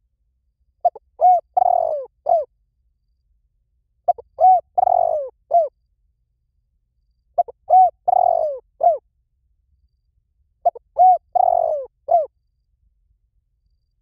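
Spotted dove cooing: four phrases about three seconds apart. Each phrase is a short run of arched coos with a longer, falling note near its end.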